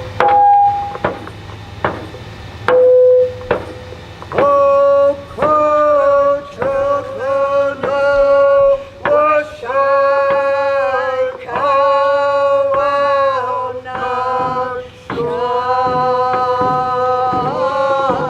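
Voices singing a song over a steady drumbeat of roughly one beat a second. After a few single held notes, the singing carries on continuously from about four seconds in.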